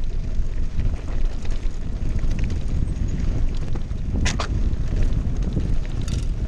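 Wind buffeting the microphone: a loud, steady low rumble. A brief high squeak about four seconds in, and a fainter one near the end.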